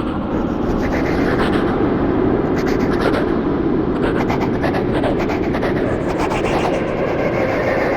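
Creepy horror sound effect: a dense, steady, noisy rumble with a fast, fluttering rattle in its upper range.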